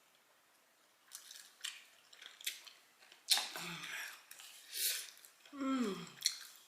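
Close-up mouth sounds of a person eating a hot-sauce-covered fried chicken wing: scattered lip smacks and chewing clicks, then a sharp breathy rush about three seconds in. Near the end comes a short vocal moan falling in pitch, a reaction to the burning heat of the scorpion pepper sauce.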